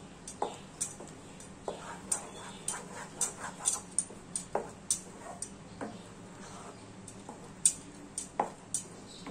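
Wooden spatula scraping and knocking against a nonstick kadai while stirring a thick coconut and moong dal paste, giving irregular clicks about once or twice a second.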